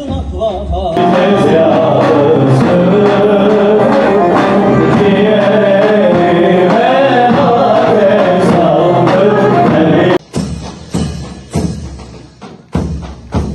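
Male choir singing a Turkish folk song with a bağlama (saz) accompaniment. About ten seconds in it cuts off abruptly to heavy mehter davul drum beats, roughly two a second.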